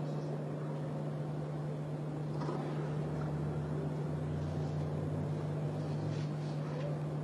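Hushed football stadium crowd holding a minute's silence: a faint, even crowd murmur over a steady low hum.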